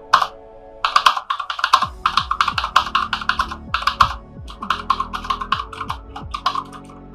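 Cosmic Byte CB-GK-03 mechanical keyboard being typed on, its clicky switches sounding in quick runs of keystrokes broken by short pauses, with music playing underneath.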